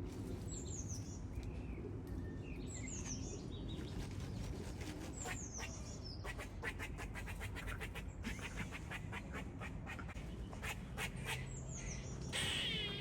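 Squirrel calling: short high chirps that fall in pitch, repeated every couple of seconds, with a quick run of sharp clicking chatter in the middle. Near the end there is a brief louder rustling burst.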